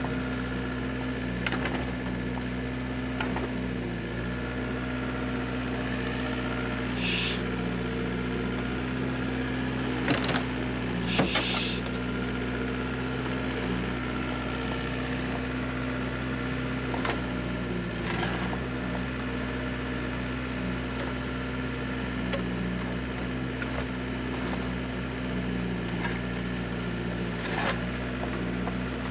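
Neuson 6003 excavator's diesel engine running steadily, with scattered knocks and a few brief hisses; the loudest knocks come about ten and eleven seconds in.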